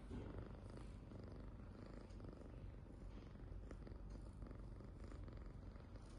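Tabby cat snoring: a faint, steady, finely pulsing low rumble.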